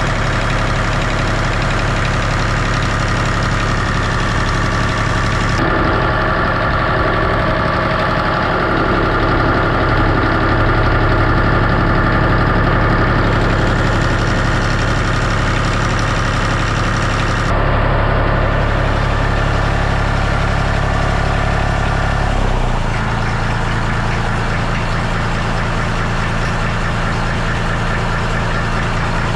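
1964 Massey Ferguson 35X tractor's three-cylinder Perkins diesel engine idling steadily, running on its freshly rebuilt fuel lift pump. The engine note drops a little about three-quarters of the way through.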